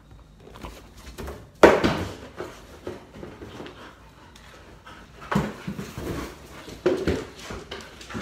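A dog whining and whimpering in a few short outbursts, the loudest starting suddenly about a second and a half in.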